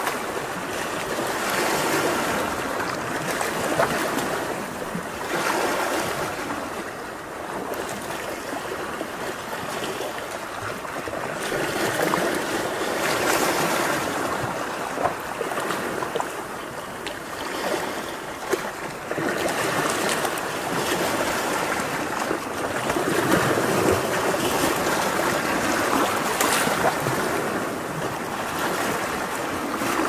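Ocean surf: waves breaking and washing in as a continuous rush, swelling and easing every several seconds.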